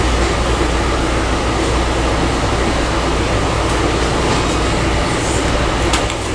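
A train running: a steady rumble and rushing noise, with a few light clicks near the end.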